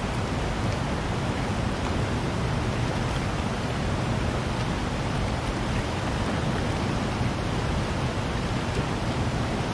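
Steady rushing of a rocky river's current flowing over rocks and riffles, an even unbroken noise with a heavy low end.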